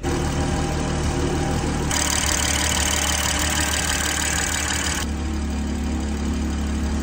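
BMW 340i's B58 3.0-litre turbocharged inline-six idling steadily after its fuel injectors were replaced, with a hiss joining in for about three seconds in the middle.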